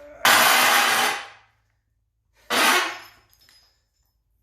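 Two short bursts of a compressed-air tool, a longer one of about a second followed by a shorter one about two seconds later.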